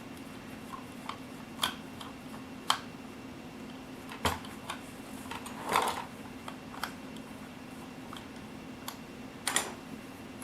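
Scattered light clicks and taps of a small screwdriver turning the battery-cover screw on a mostly die-cast metal RC loader, and of the cover being handled, over a steady low hum. The loudest taps come about six seconds and nine and a half seconds in.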